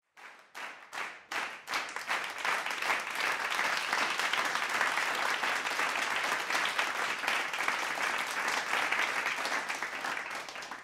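Applause: a few scattered claps that build within about two seconds into steady clapping from a small group, fading out at the very end.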